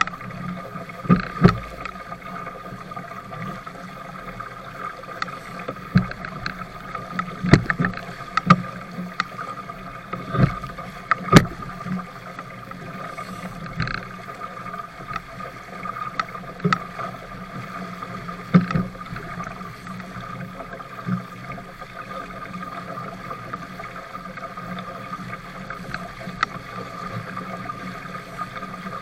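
Small sailboat's hull pounding through choppy waves: a steady rush of water and wind with irregular sharp knocks and splashes as waves hit the hull, the strongest about eleven seconds in.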